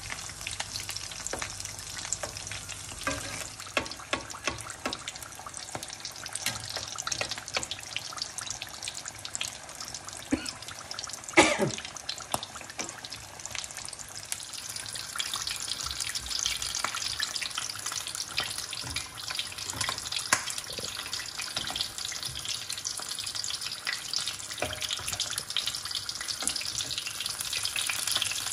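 Samosas deep-frying in hot oil in a kadai: a steady sizzle thick with small crackling pops. A single loud knock with a brief falling ring comes about eleven seconds in, and the sizzle turns brighter and hissier from about halfway through.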